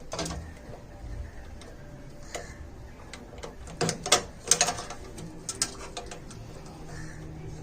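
Scattered clicks and knocks of refrigerator parts being handled while a replacement freezer is fitted, with a cluster of sharper ones about four seconds in, over a faint low hum.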